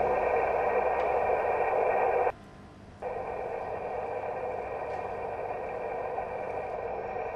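Water-leak noise as picked up by an electroacoustic geophone: a steady, band-limited hiss that cuts off abruptly about two seconds in, then after a short gap returns quieter.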